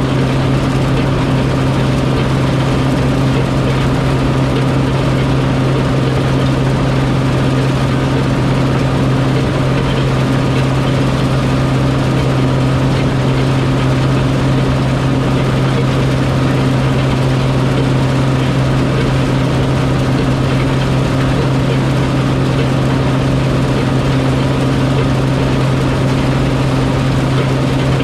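Harvest machinery engine running steadily, a constant loud drone with a strong low hum and no changes in speed.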